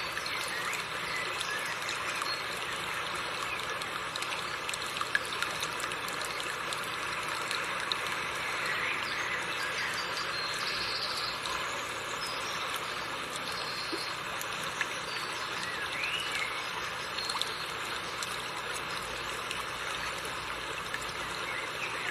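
River water running steadily over rocks, an even rushing and trickling.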